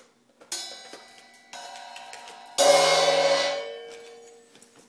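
Three ringing metallic chime strikes about a second apart, the third the loudest, ringing on for about a second as it dies away, with one lower note lingering after it.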